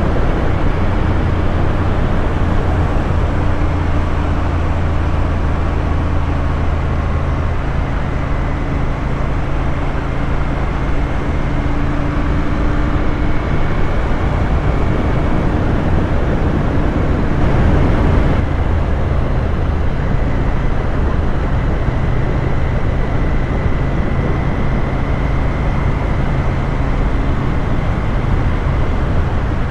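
Royal Enfield Interceptor 650's parallel-twin engine running at a steady cruise, heard from the bike with wind and road rush over the microphone. A brief swell of rushing noise comes about two-thirds of the way through.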